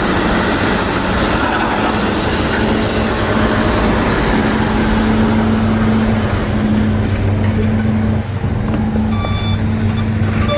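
Heavy diesel engine running steadily, with a short electronic beep about nine seconds in.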